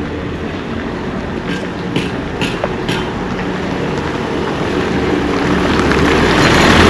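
Road traffic: a motor vehicle's engine running, with the sound growing louder over the last couple of seconds as a vehicle draws near. A few short clicks are heard about two seconds in.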